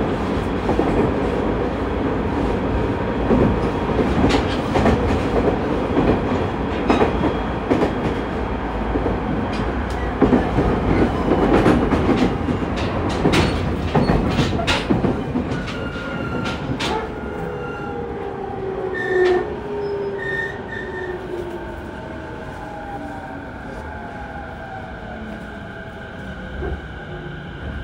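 JR East 209 series 2100-subseries electric train running, heard from inside the car. For about fifteen seconds its wheels clack over rail joints at speed. Then the traction motors' whine slides down in pitch and the running gets quieter as the train brakes and slows.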